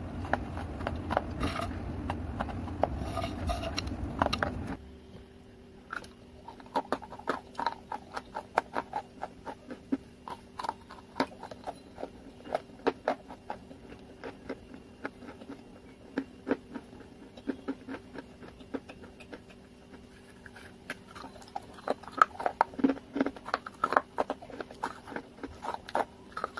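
Close-up crunching and chewing of baked clay, many sharp cracks in quick succession. The first few seconds are louder over a low hum; then, after a cut, the crunches come crisp over a faint steady hum and grow busier near the end as a clay pot is bitten.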